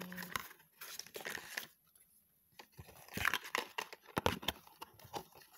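Packaging of a rapid antigen test kit rustling and crinkling as its parts are handled and taken out, in irregular bursts with a pause in the middle.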